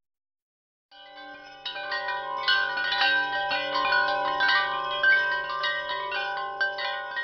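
Chimes under the closing titles: many overlapping struck, ringing notes that come in quietly about a second in and grow fuller soon after.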